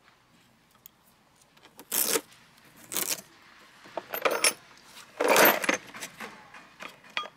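Small metal tools and parts clinking and jangling in four short bursts about a second apart, with a few light clicks between them.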